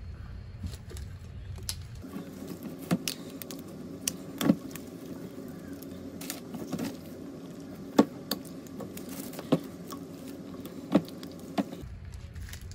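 Pliers clicking and scraping against a metal CV joint boot clamp as it is pried off an old axle boot, in about ten sharp, irregular metallic clicks and snaps.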